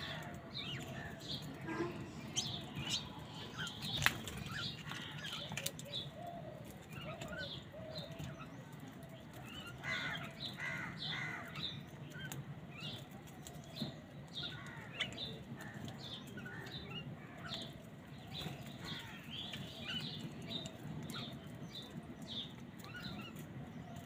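Continuous chatter of many short bird chirps and calls, with house crows cawing now and then. A single sharp click about four seconds in is the loudest sound.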